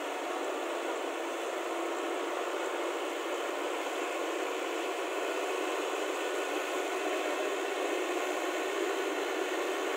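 Swaraj tractor's diesel engine running steadily while it works through flooded mud on iron cage wheels.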